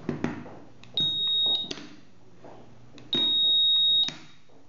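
Electronic beeps at one steady high pitch, twice, the first about half a second long and the second about a second, each cut off with a sharp click. Knocks come right at the start. These are the sounds of the magnetic lock kit's circuit being tested.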